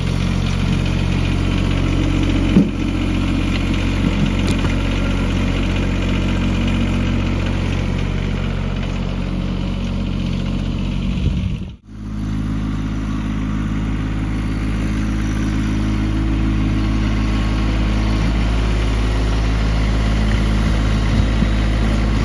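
LS compact tractor's diesel engine running steadily while its front loader works, with a few short thumps, the loudest about two and a half seconds in.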